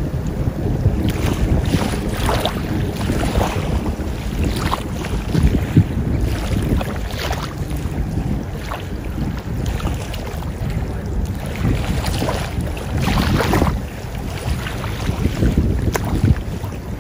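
Wind buffeting the microphone in a steady, gusting rumble, with small waves lapping and splashing irregularly at the shallow water's edge.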